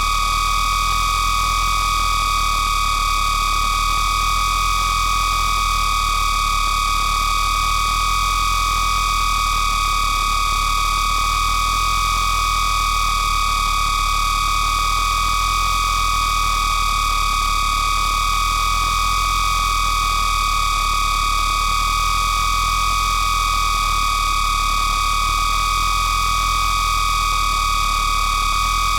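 Distorted signal static: a steady high-pitched electronic tone over hiss and a low hum, unchanging throughout.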